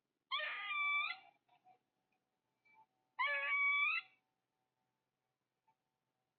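An unidentified animal calling twice, each call about a second long with a clear pitch, the two calls about three seconds apart.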